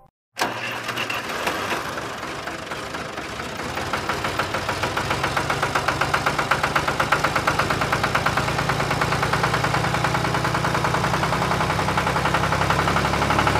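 Tractor engine running with a rapid, even chugging knock, starting suddenly just after the start and growing gradually louder.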